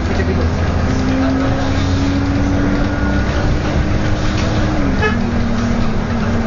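City bus's engine and drivetrain running at road speed, heard on board: a steady low drone with a whine that holds and then drops in pitch about five seconds in.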